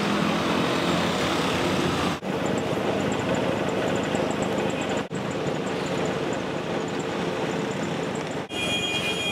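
Steady outdoor city background noise, like distant traffic, cutting out briefly three times.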